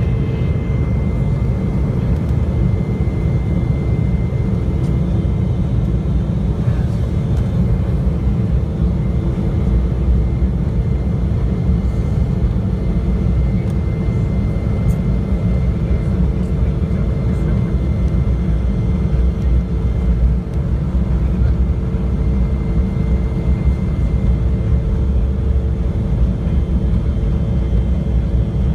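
Jet airliner's engines at takeoff power, heard from inside the cabin during the takeoff roll: a loud, steady low rumble with a steady hum and a fainter high whine over it.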